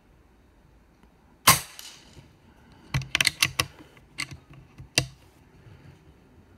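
A single shot from a Rapid Air Weapons .25 calibre air rifle about a second and a half in, followed over the next few seconds by a quick run of sharp clicks and two further single clicks.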